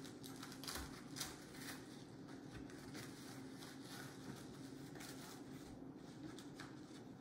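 Soft rustling and scuffing of belt webbing and elastic being pinched and pulled through the fabric belt slot of a pistol pouch, with a couple of slightly louder rustles about a second in, over a faint steady hum.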